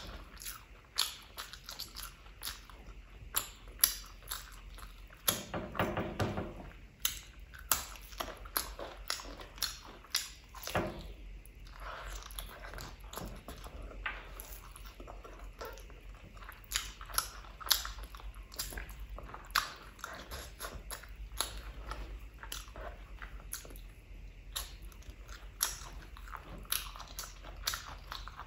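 Close-up eating sounds: biting meat off a curry-coated chicken leg and chewing it, with many sharp wet clicks and smacks. A brief low hum comes about five seconds in.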